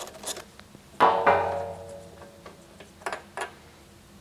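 Metal clinks from handling the freshly removed spark plug and its socket tools: a sharp clank about a second in that rings on briefly, a second clank right after it, and two light clicks about three seconds in.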